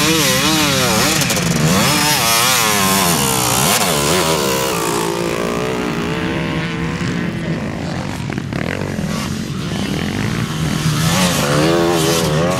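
Motocross bike engines revving up and down in quick wavering bursts as the bikes are worked through deep mud. The revving eases off for a few seconds in the middle and picks up again near the end.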